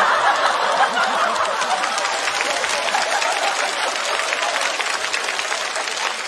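Studio audience applauding and laughing in response to a punchline, loudest at the start and slowly dying down.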